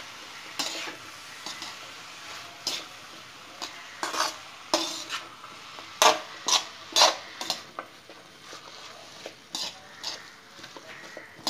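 Metal spatula stirring sliced ivy gourd, onion and spices in a metal kadai: irregular scrapes and clinks of metal on the pan, several louder ones in the middle, over a steady frying sizzle.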